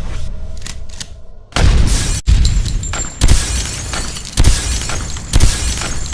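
Sound-effect big-gun shots, one about every second, each with booming impact and shattering debris, after a low rumble with a few faint ticks.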